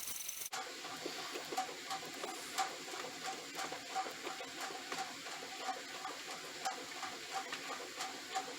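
Screwdriver driving the small screws back into the plastic face of a replacement extension cord end: a run of faint, irregular ticks and clicks.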